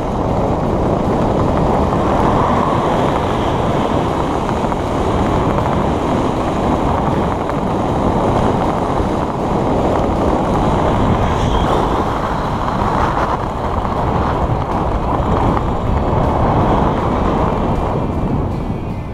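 Steady wind rushing over the camera microphone during a descent under a parachute canopy.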